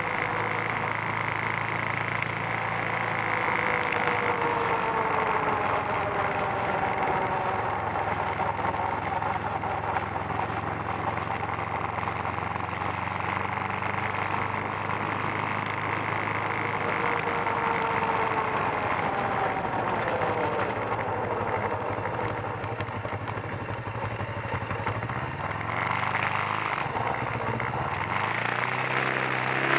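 Kawasaki 454 LTD's parallel-twin engine running steadily while the bike is ridden, under a haze of wind and road noise. Near the end the engine pitch climbs as it accelerates.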